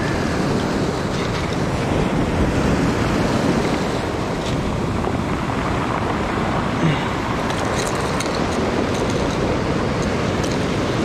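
Surf washing in and out over a pebble-and-cobble beach, a steady rushing wash, with wind buffeting the microphone. A few light clicks come in the second half.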